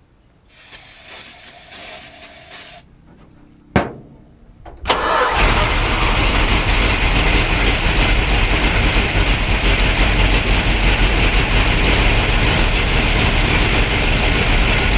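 A Plymouth 340 small-block V8 starts about five seconds in and then runs steadily and loudly, with a big exhaust leak where the headers join the rest of the exhaust. Before it catches there is a brief hiss and a single sharp click.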